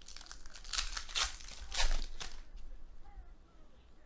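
Foil trading-card pack wrapper crinkling and tearing as it is ripped open by hand. A handful of sharp crackles come in the first two seconds or so, the loudest near the end of that run. Then only quiet handling follows.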